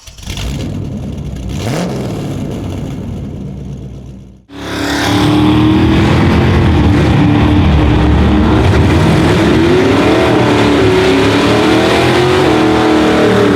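Supercharged Ford Lightning drag truck's V8 running and revving. About four seconds in the sound breaks off sharply and comes back much louder, held at high revs with its pitch wavering up and down.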